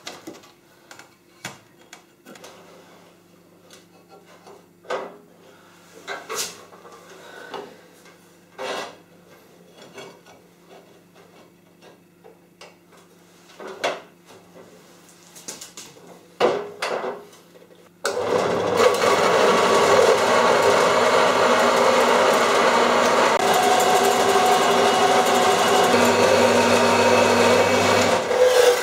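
Scattered knocks and clatter of a steel plate being handled and clamped, then, about two-thirds of the way in, an Apex metal-cutting bandsaw starts and runs steadily, its blade cutting through the steel plate, until it stops just before the end.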